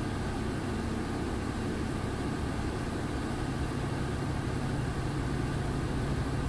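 Heavy truck's diesel engine running steadily in a low gear, holding the truck back on the downhill by engine braking alone, with neither retarder nor service brakes in use, heard from inside the cab. A steady low hum joins in about three and a half seconds in.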